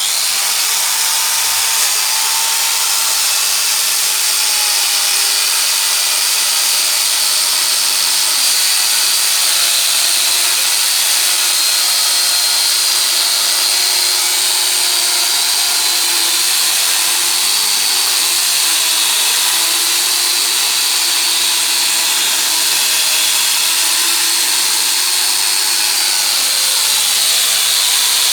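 Angle grinder fitted with a chainsaw attachment switched on and running at full speed, its chain sawing through rambutan wood. A steady, high-pitched whine with a rasping cut that starts abruptly.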